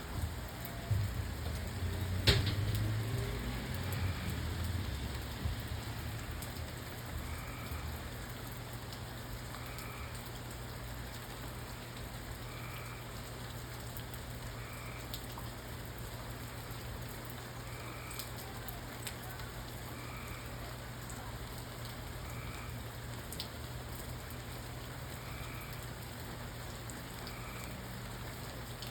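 Steady rain falling. A sharp crack and a low rumble in the first few seconds die away, and a faint chirp repeats about every two and a half seconds.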